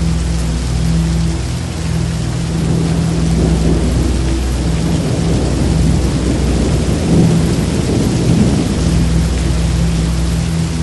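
Heavy rain pouring steadily, with a rumble of thunder that builds and fades through the middle, over a low steady hum.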